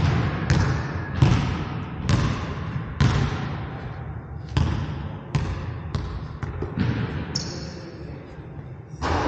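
Basketball bouncing on a hardwood gym floor, about a dozen bounces at uneven spacing, each ringing out in the echo of the large hall. A brief high squeak about seven seconds in.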